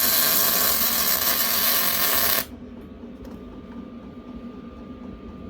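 Arc welder striking an arc to lay a tack weld: a loud steady hiss for about two and a half seconds that cuts off suddenly. After it a faint steady hum with a thin whine remains.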